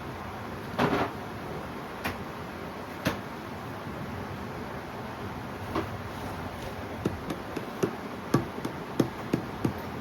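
Hand tools being handled at the engine: scattered sharp clicks and knocks, then a run of quick clicks, about three a second, in the last few seconds.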